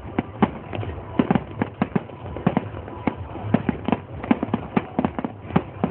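Fireworks going off: an irregular string of sharp bangs, several a second, over a low rumble.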